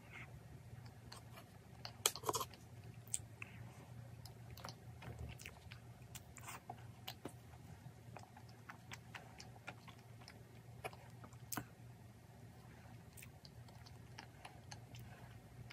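Close-up chewing and biting of Oreo cream cake, with a little crunch and many short sharp clicks scattered through, over a low steady hum.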